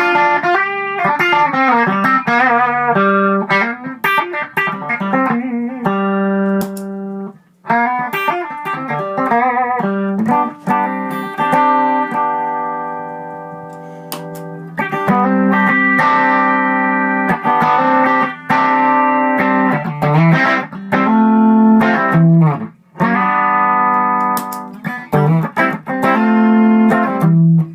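Electric guitar played through an Xotic EP Booster pedal at its stock settings: bright mode, with a 3 dB boost at the minimum knob setting. Picked single-note lines and strummed chords, with one chord left to ring out and fade about halfway through.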